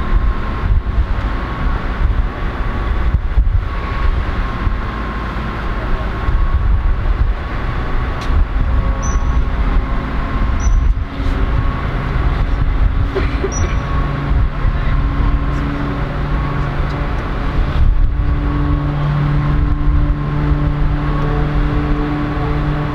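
Bulleid Battle of Britain class steam locomotive 34067 Tangmere pulling away with its train: a loud, continuous low rumble with a steady whine above it, a few sharp knocks, and a low hum that comes in about halfway through.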